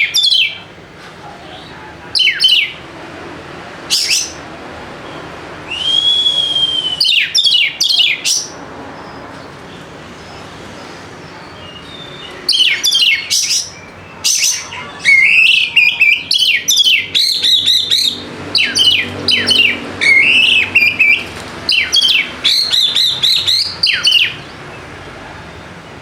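Oriental magpie-robin (kacer) singing loud, sharp whistled notes that sweep down in pitch. The song comes in separate bursts for about eight seconds, pauses for about four, then runs densely for about twelve seconds.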